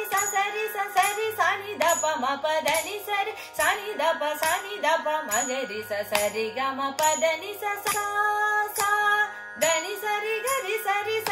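A woman sings a Carnatic higher-octave varisai exercise in sargam syllables (sa ri ga ma pa da ni) over a steady drone, moving quickly from note to note. Regular sharp hand slaps mark the tala.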